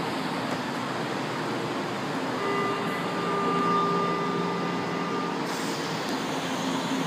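São Paulo Metro train standing at a station platform, its running noise steady; about two and a half seconds in, a steady tone sounds for about three seconds, then stops.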